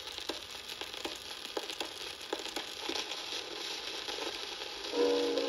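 Stylus running in the lead-in groove of an old home-recorded disc on a record player: surface hiss and crackle with scattered clicks and pops, a few each second. Near the end, music starts playing from the record.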